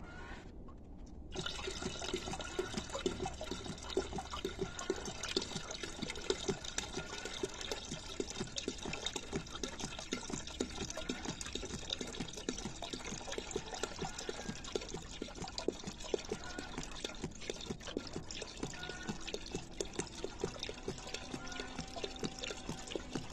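Engine oil contaminated with water draining from the Kubota V3600 diesel's oil-pan drain hole and splashing steadily into a pail. The stream starts about a second in, as the drain plug comes out.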